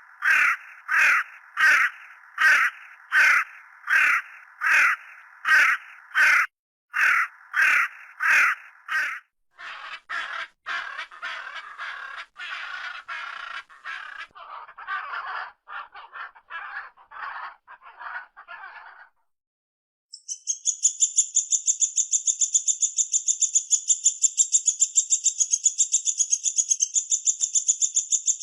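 Recorded bird calls from several kinds of songbird in turn. First comes a call repeated over and over, about one and a half a second. Then a faster chattering series, and after a short pause a long, high, rapid trill.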